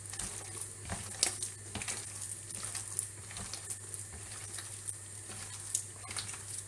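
Hands kneading and squeezing raw minced-meat meatball mixture in a plastic tub: irregular wet squelches and slaps, one sharper slap about a second in.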